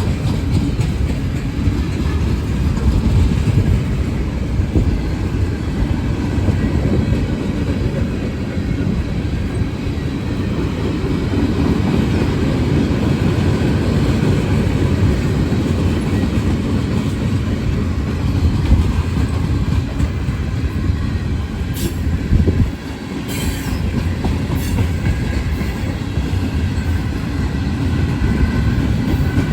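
Freight train of covered coil cars rolling past: a steady low rumble of wheels on rail with some clickety-clack, and a few sharp clicks about three-quarters of the way through.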